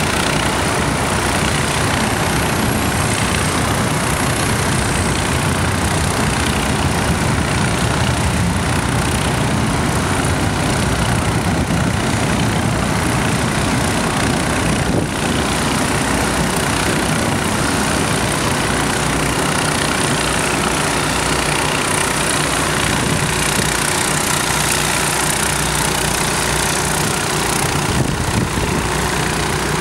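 Steady, unchanging drone of engine-driven pumps on a barge pumping water out of its hull, mixed with the rush of water pouring from the discharge pipes over the side.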